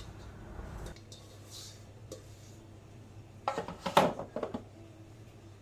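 Stainless steel stand-mixer bowl knocking and clinking as it is handled and set on the mixer base, with a short cluster of sharp knocks about three and a half seconds in.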